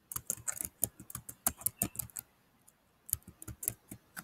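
Typing on a computer keyboard: a quick run of keystroke clicks, a pause of under a second about two seconds in, then another run of keystrokes.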